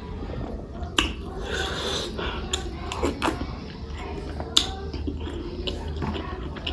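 Close-up mouth sounds of someone chewing boiled egg with tomato pickle: wet smacking and small clicks, with two sharp louder clicks about a second in and about four and a half seconds in.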